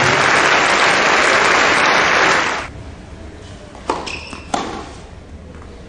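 Tennis crowd applauding, cutting off about two and a half seconds in. Then two short sharp knocks, about two-thirds of a second apart.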